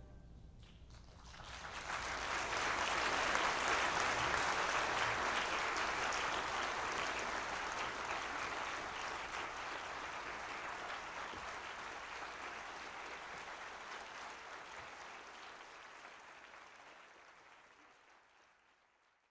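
Audience applause, rising about a second and a half in and slowly dying away near the end.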